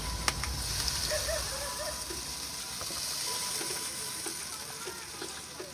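Water poured from a basin over crabs in a plastic colander, splashing and draining through the holes.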